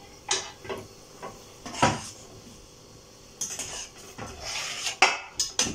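Metal skimmer knocking and clinking against a metal cooking pot and roasting tray as boiled chicken pieces are lifted out of the broth: a few separate knocks, a brief scrape, then a quick run of clinks near the end.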